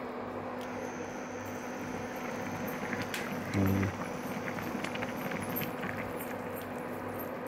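Fish curry boiling hard in a wide steel pan on an electric cooktop: steady bubbling with fine crackling pops, over a steady hum and a faint high whine. A brief low hum sounds about halfway through.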